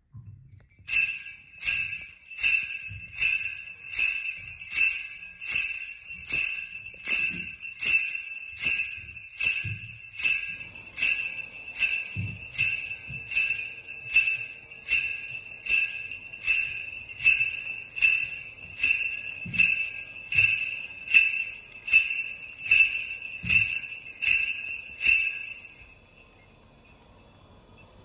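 Sleigh bells shaken in a steady rhythm, a bit more than one jingling shake a second, stopping about 26 s in and ringing away briefly.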